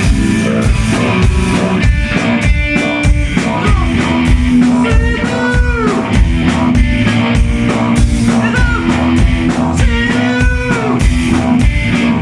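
Rock band playing: a steady drum-kit beat under electric guitar, with a held low note and two slow bent notes that rise and fall, about five and ten seconds in.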